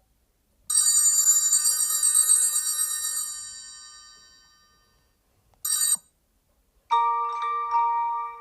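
Google Pixel 9 ringtone previews: a bright, shimmering chime rings out and slowly fades over about four seconds. Then a short snippet of another tone is cut off. Near the end, a new ringtone of struck, mallet-like notes begins.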